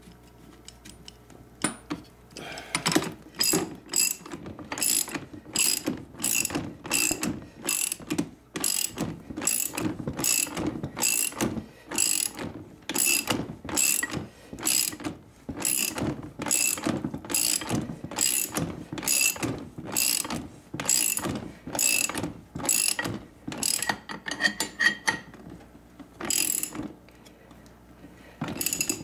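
Socket ratchet wrench clicking as it is swung back and forth to tighten a wheelchair's rear-wheel axle nut. It makes steady strokes of about two a second, then a quick run of finer clicks near the end and a couple of last single clicks.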